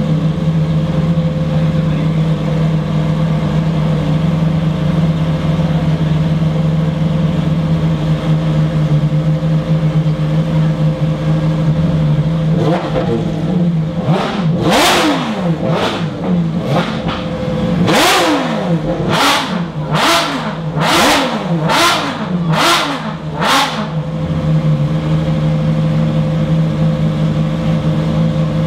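Ferrari XX-programme track car's V12 engine idling, then blipped hard in a quick series of about a dozen sharp revs for around ten seconds from a little under halfway through, settling back to a steady idle.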